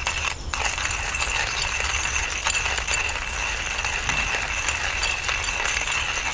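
Wacaco Mini hand coffee grinder with a ceramic burr being cranked through whole beans, a steady run of small clicks and rattles.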